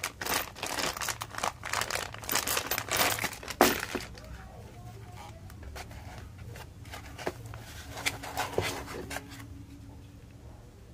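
Packaging being handled and opened, crinkling and tearing in quick, dense rustles for about four seconds, then a few lighter crinkles and clicks.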